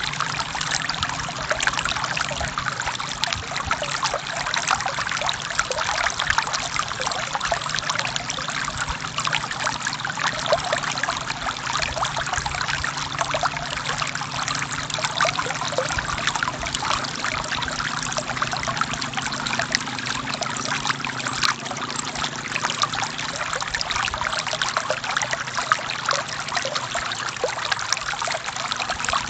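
Forest stream water flowing and trickling over rocks, a steady splashing babble.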